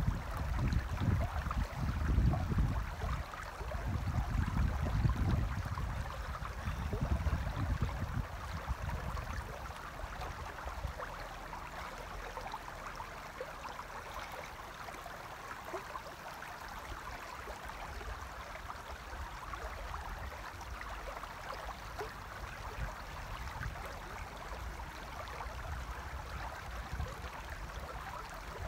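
Shallow river running over stones, a steady rushing hiss. Wind gusts buffet the microphone with a low rumble for the first several seconds, then drop away about ten seconds in.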